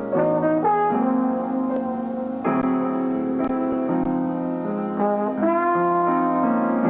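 Jazz trombone and piano duet playing a slow ballad: the trombone holds long, smooth melody notes over the piano's chords.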